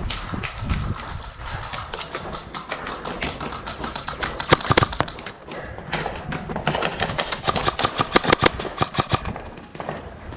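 Airsoft guns firing on a game field: sharp cracks in rapid bursts, the loudest about four and a half seconds in and again from about eight to nine seconds, with scattered single shots between.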